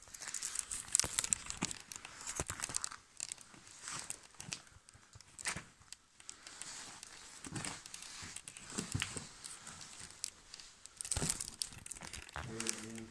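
Close handling noise: a wicker basket rubbing and creaking against the microphone, a crinkly rustle full of small clicks and crackles that swells and fades as it is moved.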